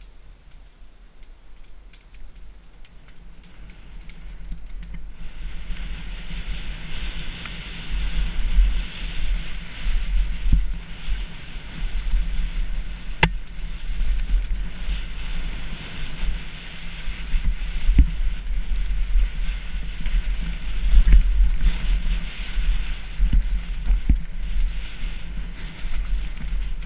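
Mountain bike descending a dirt trail, heard from a helmet-mounted GoPro: tyres rolling over dirt and the bike rattling over bumps, with wind rush on the camera. It grows louder over the first few seconds as speed builds, with a few sharp knocks, the sharpest about halfway through.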